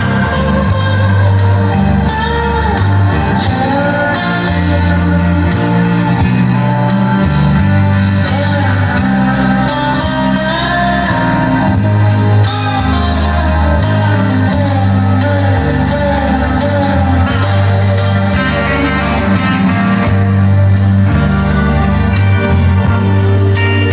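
Music with a singing voice over a bass line and guitar.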